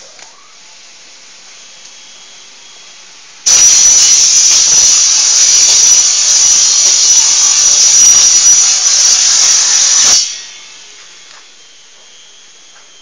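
Cutting saw of a sandwich panel line cutting through a rock wool sandwich panel: a loud, steady grinding noise with a high whine that starts abruptly about three and a half seconds in and cuts off about ten seconds in.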